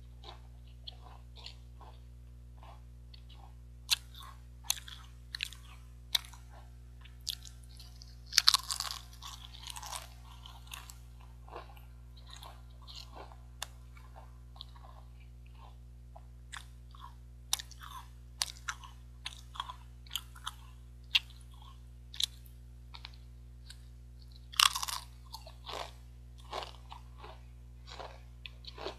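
Close-up crunching and chewing of Pringles potato chips: many short crisp crunches, with two louder bursts of crunching about 9 and 25 seconds in. A steady low hum runs underneath.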